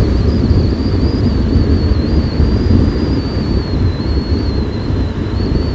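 Wind buffeting the microphone on a moving motorcycle taxi: a loud, steady low rumble with a thin high whine that wavers slightly in pitch.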